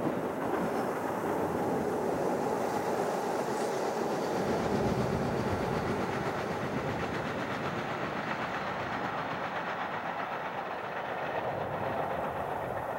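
Distant Boeing 737-800's CFM56-7B jet engines at takeoff thrust during the takeoff roll: a steady, rushing jet noise, loudest about five seconds in and easing slightly as the jet rotates and lifts off near the end.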